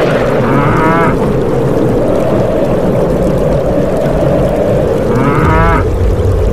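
Steady heavy rush of pouring rain-like water. Two short, wavering animal cries cut through it, one about half a second in and one near the end.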